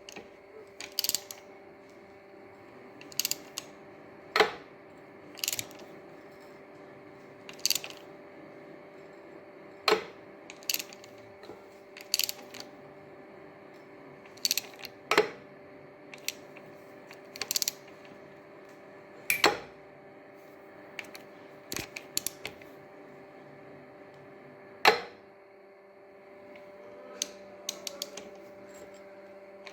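Sharp metallic knocks at uneven spacing, about one every one to three seconds, over a steady hum from a Toyota 1HZ 4.2 litre diesel engine: the engine knock the owner is chasing.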